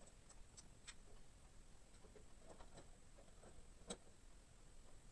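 Near silence with a few faint, irregular clicks, the loudest about four seconds in.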